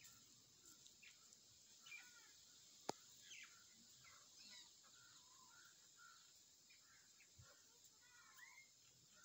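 Faint bird chirps, many short calls scattered throughout, with a single sharp click about three seconds in.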